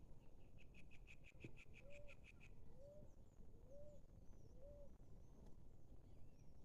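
Faint wild birds calling: a quick run of about a dozen high notes, then four low, rising-and-falling notes about a second apart, with thin high chirps behind.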